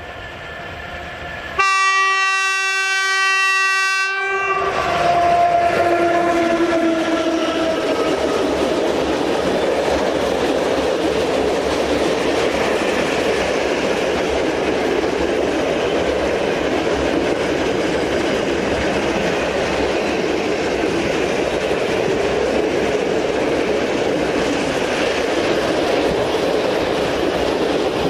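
ET22 electric freight locomotive sounding its horn in one blast of about two and a half seconds as it nears, then passing with a falling whine. A long train of open-top freight wagons follows, rolling past with a steady rumble and clatter.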